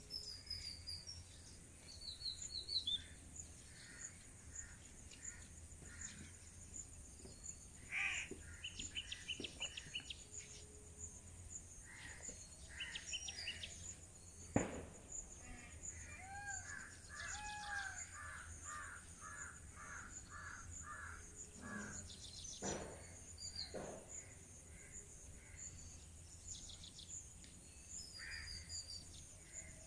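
Many birds calling and chirping in short phrases and trills, over a steady high trill of insects. A single sharp crack cuts in about halfway through.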